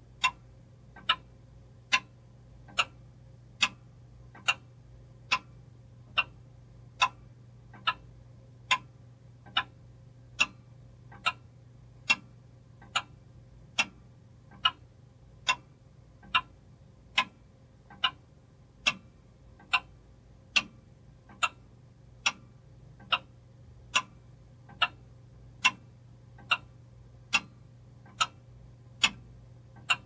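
Steady, evenly paced ticking, a little faster than one tick a second, over a faint low hum.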